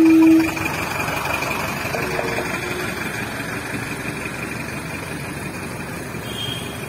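Engines of a slow-moving vehicle procession: a tarpaulin-covered truck and a van rolling past at low speed, with a steady high whine over the running. A loud held tone stops about half a second in.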